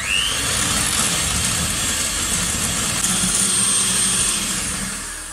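Electric hand mixer switched on, its motor whining up to speed, then running steadily as the beaters whisk a yolk, sugar and citrus mixture in a glass bowl. It eases off near the end.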